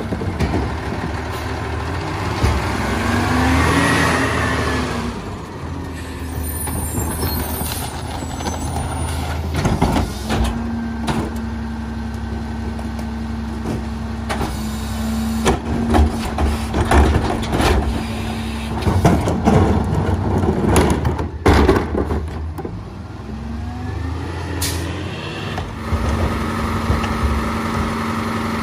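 Peterbilt 348 rear-load garbage truck with an EZ-Pack Goliath body at work. The engine revs up and back down a few seconds in, then runs with a steady drone while sharp knocks and bangs come from the rear. Near the end the engine revs up again.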